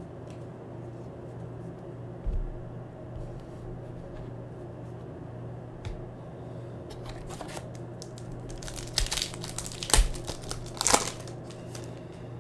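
A foil trading-card pack wrapper being torn open and crinkled by hand, in a run of crackles in the second half that are loudest near the end, over a steady low hum. There is a single thump about two seconds in.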